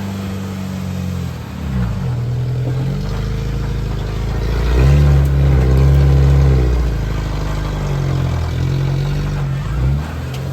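Off-road vehicle engine revving up and down several times while crawling over an obstacle, loudest in a sustained rev about halfway through.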